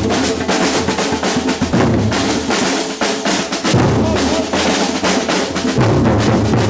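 Batucada samba percussion ensemble playing a dense, driving rhythm: deep surdo bass drums pulsing under fast, crisp snare and hand-drum strokes.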